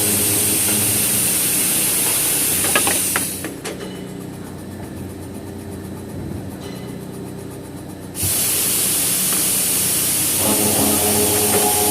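Automatic circular saw machine running with a loud, steady hiss. A few clicks come about three seconds in, then it drops to a quieter level. It comes back abruptly at full level about eight seconds in, with steady hum tones joining near the end.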